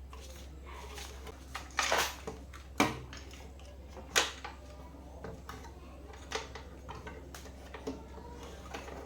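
Hard objects being handled, like tools and parts on a workbench: scattered sharp clicks and knocks, the loudest about two, three and four seconds in, over a steady low hum.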